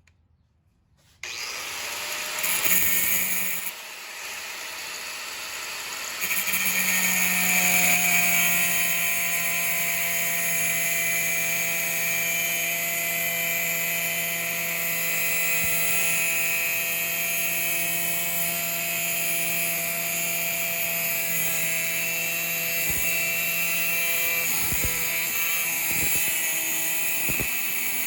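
An electric power tool starts suddenly about a second in and runs steadily with a motor whine. It grows louder and heavier about six seconds in, and a few sharp knocks come near the end.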